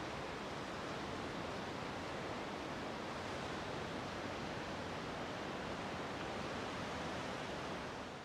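Steady rush of ocean surf and wind, with no distinct events, fading out near the end.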